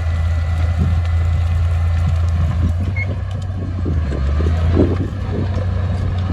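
Heavy construction machine's diesel engine running steadily with a deep hum, with scattered metallic clanks and knocks over it.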